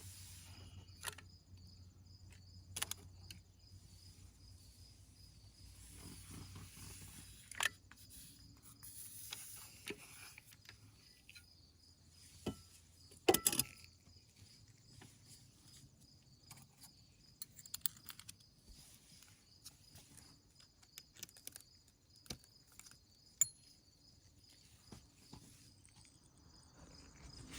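Scattered clicks, knocks and light metallic rattles of hand work fitting a part into a plumbing box, the loudest knock about halfway through. Insects chirp steadily in the background.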